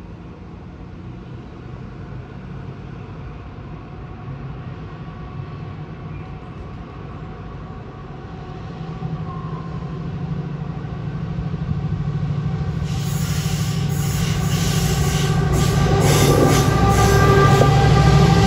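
Colas Rail Freight Class 70 diesel locomotive, its GE PowerHaul V16 engine working hard as it hauls a loaded timber train towards the listener, the engine drone growing steadily louder. From about two-thirds in, the wheels clatter over rail joints as the locomotive draws close.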